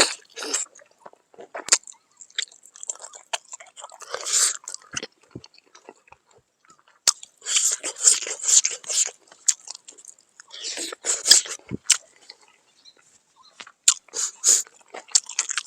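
A person biting and chewing crunchy smoked pork, close to the microphone, in several bouts of crackly crunching with short pauses between.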